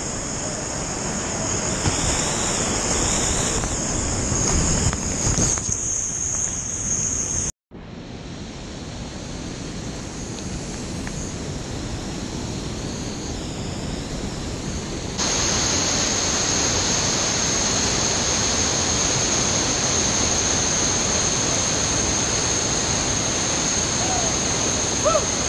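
River whitewater rushing steadily through rapids, close to the microphone. The sound cuts out briefly about seven and a half seconds in, then returns and steps louder about halfway through.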